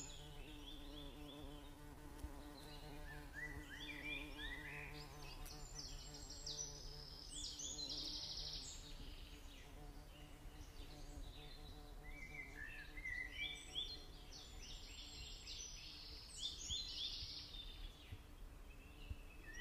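A songbird singing several bursts of quick, stepped high notes, over a faint steady low hum.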